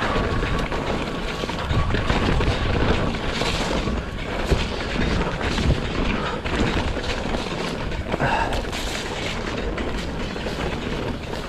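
Mountain bike ridden fast over a rough trail: wind rumbling on the microphone, tyre noise on dirt, and a steady run of sharp knocks and rattles from the bike over bumps.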